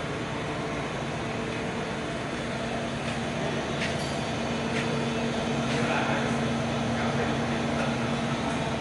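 Okuma MC-5VA vertical machining center running on test: a steady mechanical hum with a few held tones, with a few faint ticks about halfway through.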